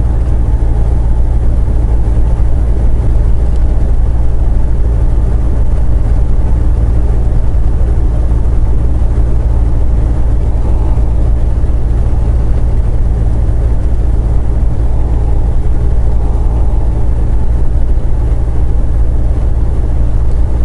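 Semi truck's diesel engine and road noise droning steadily inside the cab while driving at a constant pace, with no change in engine speed.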